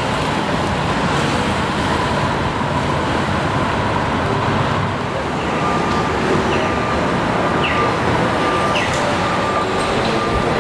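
Steady downtown street traffic: cars and buses running past. About halfway through, a faint steady high whine joins as an electric trolleybus draws near, with a few short chirps.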